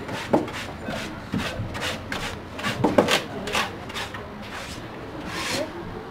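ATM dusting brush swept in short strokes over the cash machine's fascia: irregular rough swishes about twice a second, with a couple of sharper knocks, one about a third of a second in and one around three seconds in.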